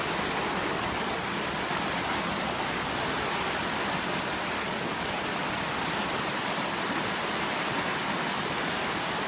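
Muddy floodwater rushing steadily.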